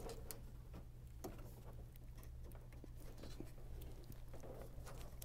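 Faint small clicks and rustles of hands working a wire terminal into a plastic Microsquirt harness connector, over a steady low hum.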